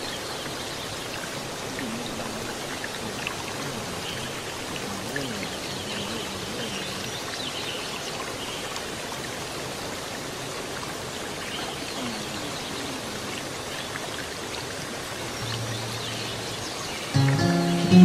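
Steady rushing of flowing water, like a stream running close by. Music starts suddenly near the end, much louder.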